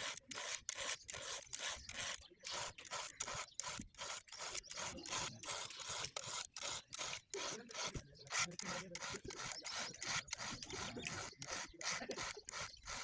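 Hand saw cutting through wood in quick, even back-and-forth strokes, about three a second.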